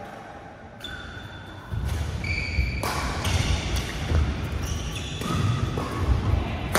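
Badminton rally: a string of sharp racket strikes on the shuttlecock, with short high squeaks of court shoes on the synthetic floor. A low rumble comes in about two seconds in.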